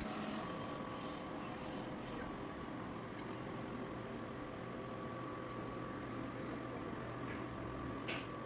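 Metal lathe running with a steady hum and a faint high tone. Two short sharp noises come near the end.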